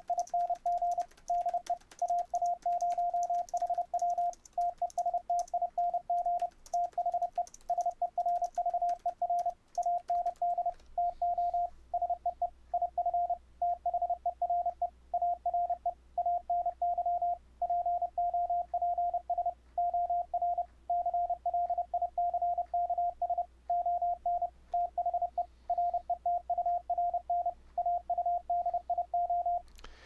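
Computer-generated Morse code: a 700 Hz CW tone from fldigi keyed at about 30 words per minute, sent through the Mumble voice server and heard back in loopback to check the return audio for pops or clicks. The text it spells out is "testing de AA0HW testing the server and to see if there are any pops or clicks on the return audio". It stops just before the end.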